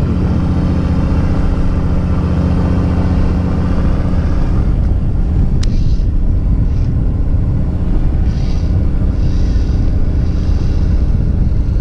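Fishing boat's engine running steadily at anchor, a loud, even low drone. There is a single sharp click about halfway through.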